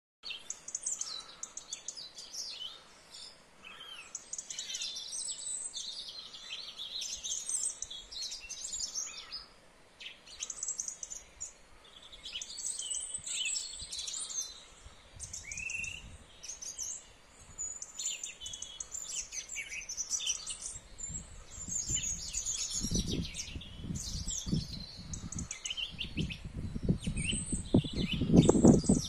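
Dawn chorus: several songbirds singing at once in overlapping phrases. From about two-thirds of the way through, an irregular low rumbling builds up underneath and is loudest near the end.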